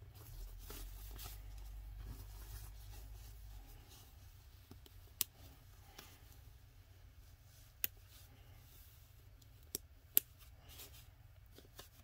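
Soft cloth rustling as a bodysuit is worked onto a reborn baby doll, with a low handling rumble over the first few seconds and four sharp clicks in the second half.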